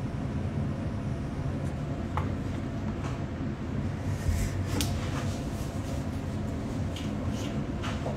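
Steady low hum of a small room, with scattered clicks and rustles from someone moving close to a phone microphone as she gets up from a desk, the busiest stretch about four to five seconds in.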